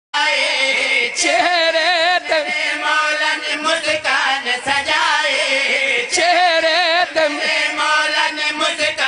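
A man singing a qasida, a devotional praise poem, in a loud, heavily wavering voice in two long phrases.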